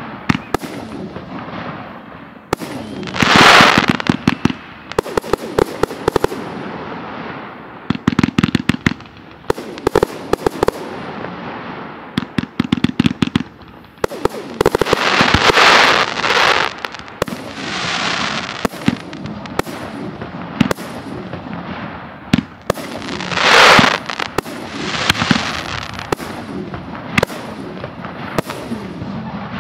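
Professional fireworks display: aerial shells and F3 fireworks firing and bursting in many sharp bangs, some in quick clusters, with loud, noisier bursts lasting about a second, about three seconds in, around fifteen seconds and near twenty-four seconds.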